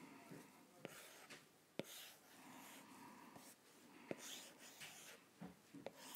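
Faint stylus tip tapping and sliding on an iPad's glass screen while inking lines, with a few sharp clicks at irregular intervals.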